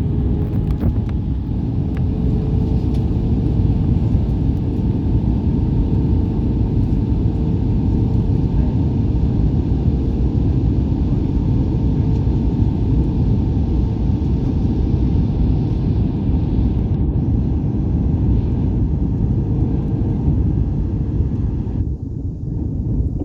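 Steady cabin noise inside an Airbus A320 in flight: a loud, even rumble of engines and airflow with a faint steady hum. Near the end the higher hiss drops away while the rumble goes on.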